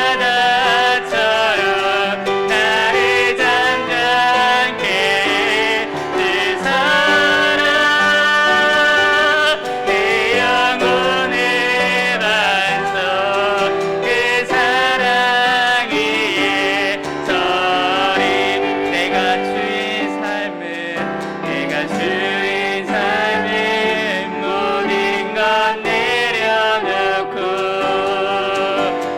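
Church praise-team worship music: piano accompanying singers in a worship song.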